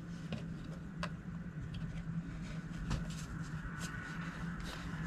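Faint clicks and light taps of hands handling the hardboard back of a wooden picture frame, over a steady low hum.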